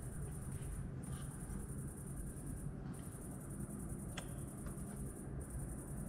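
Crickets chirring in a steady high-pitched buzz that breaks off briefly about every two seconds, over a low steady rumble, with one faint click about four seconds in.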